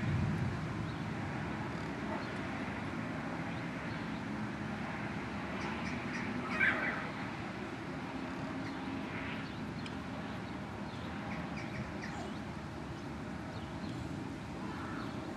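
Steady low outdoor background noise, with one short bird call about seven seconds in and a few fainter calls later.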